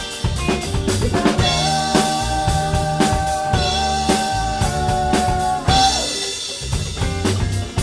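Live rock band playing loudly, dominated by a Mapex Mars Birch drum kit with Zildjian S series cymbals: kick, snare and cymbals keep a driving beat under bass and guitar. About a second and a half in, a long held high lead note starts and sounds for about four seconds.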